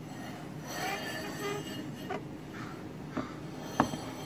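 A steel straightedge being handled and moved against a wooden end-grain cutting board while checking it for flatness: rubbing and scraping, a couple of light ticks, and a sharp click near the end as the straightedge is set down.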